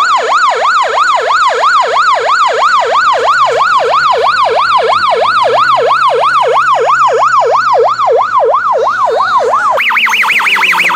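Ambulance siren from a roof-mounted loudspeaker, wailing up and down rapidly at about three sweeps a second. Near the end it switches to a higher, faster pattern.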